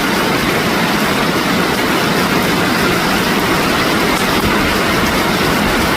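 Heavy rain pouring down in a steady, loud, dense hiss with no letup.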